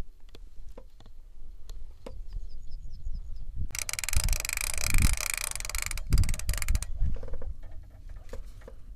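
Spinning reel on a feeder rod being cranked: a dense, rapid mechanical whirr lasting about two seconds from near the middle, with a few shorter bursts right after. Knocks and thumps of the rod being handled come through at the same time.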